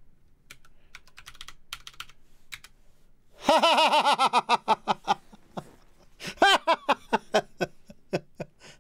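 Typing on a computer keyboard, a quick run of keystrokes. A little over three seconds in, a man's voice breaks in much louder with drawn-out wordless exclaiming, then laughter.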